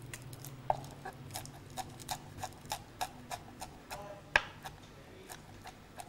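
Knife chopping curry leaves on a wooden cutting board: steady, even strokes about three a second, with one louder knock about four seconds in.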